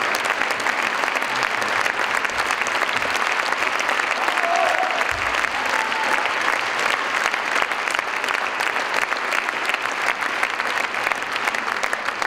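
Audience applauding: dense, steady clapping from a full theatre house.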